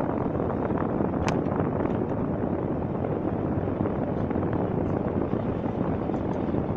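Steady cabin noise of a car driving on a snow-covered road: engine and tyre rumble, heard from inside the vehicle, with a faint click about a second in.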